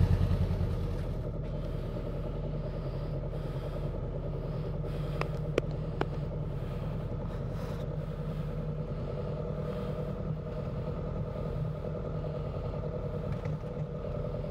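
Honda CB500X's parallel-twin engine idling steadily with an even low pulse, settling down within the first second. Two light clicks come about five and six seconds in.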